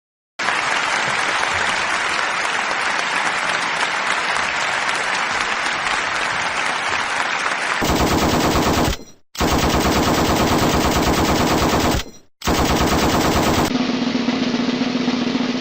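Loud rapid rattling sound effect in the manner of automatic gunfire. It starts sharply about half a second in, turns about eight seconds in into a faster, very even rattle broken by two brief gaps, and near the end gives way to a steadier rattle over a low hum.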